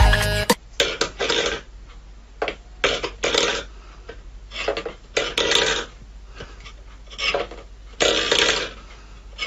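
Small metal food bowl scraping and knocking on a wooden floor as a cat paws at it, in a string of short, irregular bursts. Music cuts off just after the start.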